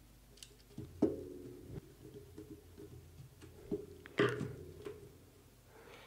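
Handling noises of a plastic motor contactor and its control wiring being fitted to the coil terminal: a sharp knock about a second in, light ticks, and a short scraping rustle just past four seconds, over a faint steady low hum.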